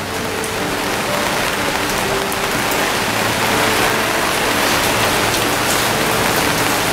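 Heavy rain pouring down in a steady, dense hiss that grows slightly louder as it goes on.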